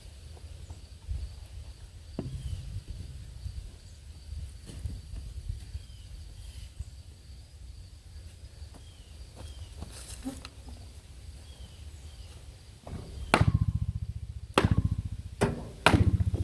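A 90-degree pipe fitting being pounded onto a pipe: four loud, sharp blows near the end, each ringing briefly. Before them, only faint small clicks and a few light chirps over a low background.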